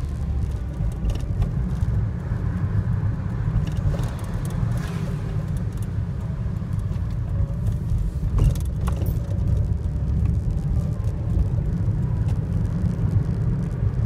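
Steady low rumble of a car being driven, engine and road noise heard inside the cabin, with a few light clicks and a brief knock about eight and a half seconds in.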